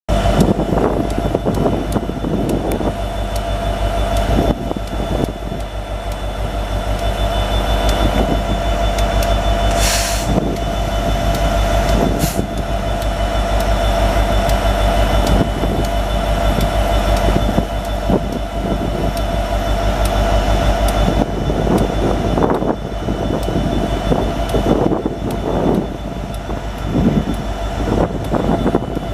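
EMD SD70M-2 diesel-electric locomotive, with its 16-cylinder two-stroke 710 engine, rumbling slowly past with a steady engine drone and a steady whine. Wheels click over the rail joints, with a brief hiss about ten seconds in.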